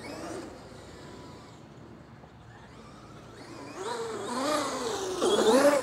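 Traxxas XRT RC monster truck's 1100kv brushless motor and drivetrain whining under throttle, its pitch rising and falling as the throttle is worked. Faint at first, it grows much louder over the last two seconds.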